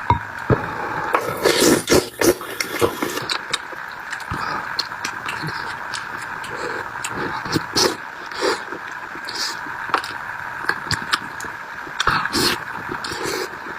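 Close-up eating sounds: chewing and crunching, with scattered sharp clicks and scrapes, over a steady background hiss.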